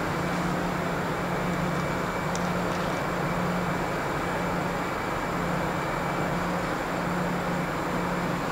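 Steady machinery drone inside the car ferry Blue Dolphin: a low hum over a broad rushing noise. The hum dips briefly twice in the second half.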